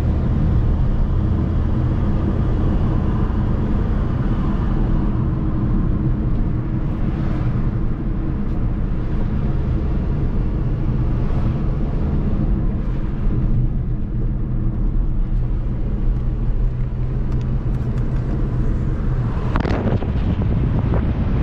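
Steady engine and tyre rumble of a car driving on a highway, heard from inside the cabin. Near the end there is a brief louder swish.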